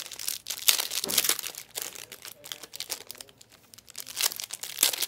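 Plastic trading-card pack wrappers and cards crinkling and rustling as they are handled, in irregular crackles.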